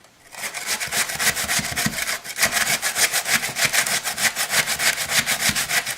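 Raw potato being shredded on a metal hand grater: fast, even back-and-forth rasping strokes, several a second, starting about half a second in.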